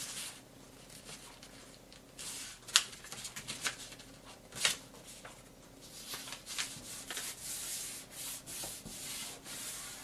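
A square sheet of paper being folded in half and the crease pressed flat: paper rustling and fingers rubbing along the fold, with a few sharp crackles of the paper bending.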